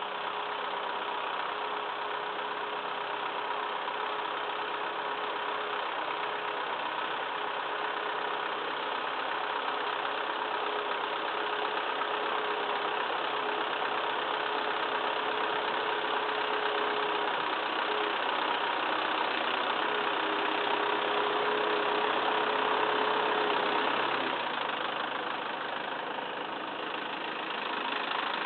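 Massey Ferguson 2635 tractor's diesel engine running steadily, with a steady whine over it that drops out briefly a few times. The engine gets a little louder about three quarters of the way through, then eases off.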